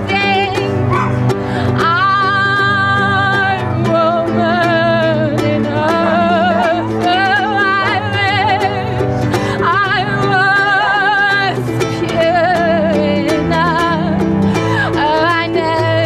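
A woman singing with a wide vibrato over a small live acoustic band: a strummed ukulele, a bowed cello and a double bass holding low notes.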